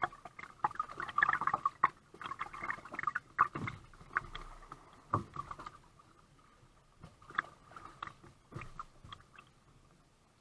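Kayak paddling: paddle strokes splashing in the water with scattered knocks, busier in the first half and sparser after about six seconds.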